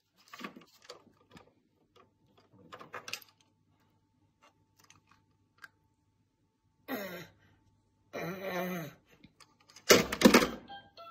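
Small hard plastic toys clicking and tapping as a toddler handles them, with two short voice-like sounds in the middle and a loud plastic clatter near the end as the toy phone is knocked against the toy farm house.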